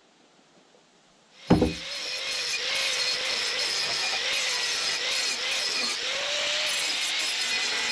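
An electric handheld power tool starts up about a second and a half in and runs steadily on wood, its hum dipping and wavering as it takes load.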